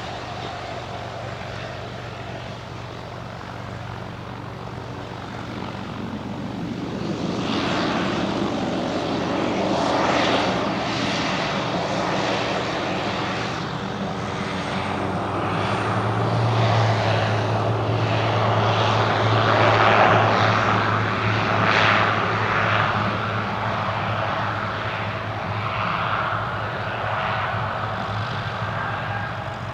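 Pilatus PC-12 single-engine turboprop (Pratt & Whitney PT6A) taking off at full power. Its engine and propeller grow louder to a peak about twenty seconds in as it passes, then ease off a little.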